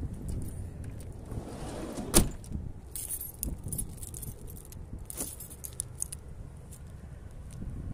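A bunch of keys jangling in hand, in short jingly flurries, with one sharp knock about two seconds in.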